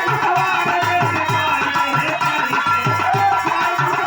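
Birha folk accompaniment without singing: a dholak plays a steady rhythm of about three to four strokes a second, its bass strokes bending down in pitch, under a harmonium melody.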